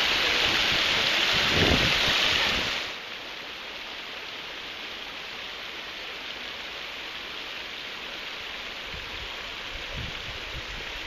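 Waterfall rushing steadily, then abruptly much quieter about three seconds in.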